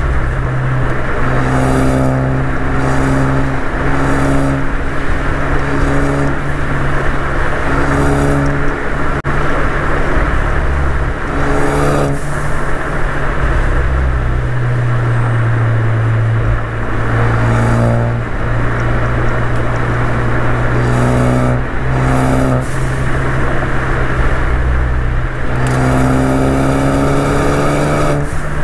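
Ford Focus ST's turbocharged 2.0-litre four-cylinder engine and resonator-deleted exhaust pulling hard through the gears, pitch rising and dropping with each pull and shift. Short hissing bursts come when the throttle lifts, typical of its aftermarket blow-off valve venting. Wind and tyre noise run underneath.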